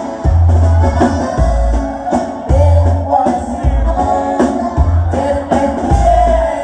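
Live band music: electric bass, drum kit, accordion and acoustic guitar playing a Tejano/norteño song, with a man singing. The bass notes land heavily about once a second under the drums.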